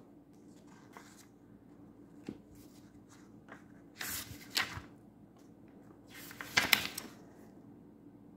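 Paper pages of a thick illustrated book being turned by hand: faint rustles and soft taps, then two louder swishing page flips about four seconds in and again around six and a half seconds, the second the loudest.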